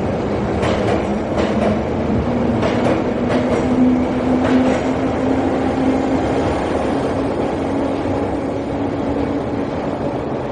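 Train running slowly along a station track: a steady rumble with a held hum, its wheels clacking over rail joints several times in the first half, then easing off and slowly fading.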